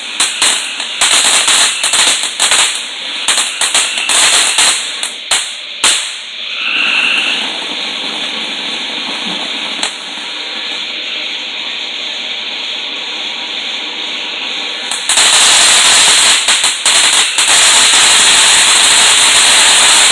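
Consumer fireworks going off: rapid crackling pops for about the first six seconds, then a steady spraying hiss that turns much louder about fifteen seconds in.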